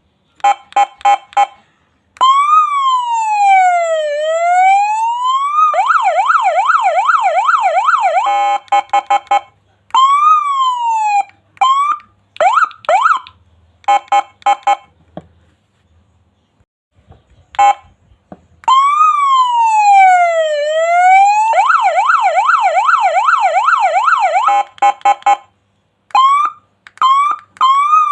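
Three-tone electronic mini siren sounding through its patterns: a few short blips, then a slow wail that falls and rises once, a fast yelp warbling several times a second, and short rising whoops, with brief pauses between. The cycle of tones starts over about halfway through.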